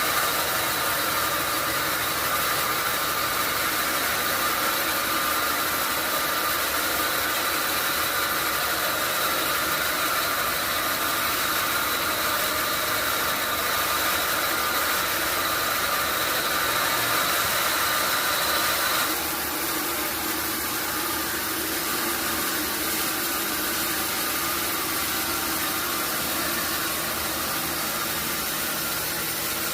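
Sawmill machinery running steadily, a dense mechanical noise with a high whine over it. About two-thirds of the way through the whine cuts off and the noise gets slightly quieter.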